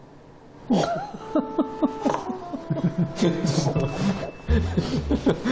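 After a short lull, people laughing, with a brief comic music sting of a few held notes underneath.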